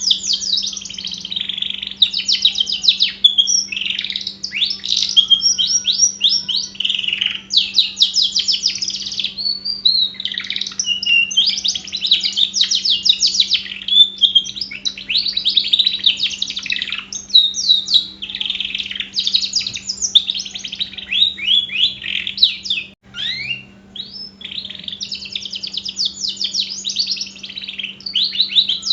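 Domestic canary singing a long, continuous song of fast trills and rolls, broken only by brief pauses, over a faint steady hum.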